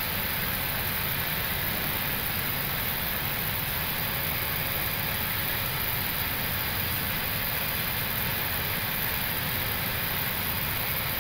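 Steady cabin noise inside an Airbus A321neo cockpit while taxiing on idle thrust: an even hiss with a low rumble, unchanging throughout.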